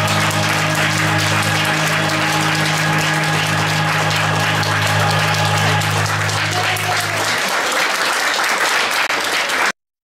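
Audience applauding over the last held low note of the backing music. The note ends about seven seconds in, the clapping goes on, and then all sound cuts off abruptly just before the end.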